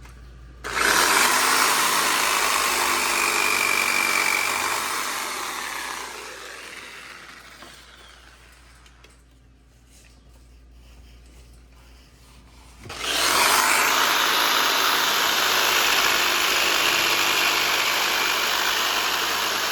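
Power saw cutting wood: a long cut begins about a second in and trails off, then after a pause a second long cut starts about two-thirds of the way through.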